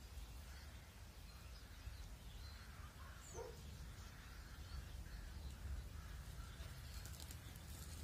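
Faint outdoor ambience: a low steady rumble, with a single short bird call about three seconds in and a brief soft rustle near the end.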